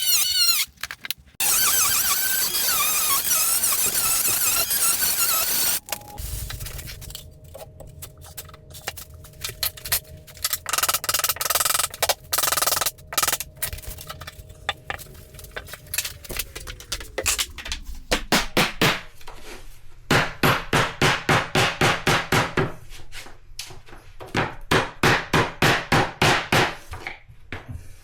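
A power saw cutting a vinyl plank, its motor winding down about two-thirds of the way through. Then quick runs of hammer taps knock the plank's joint into place through a tapping block.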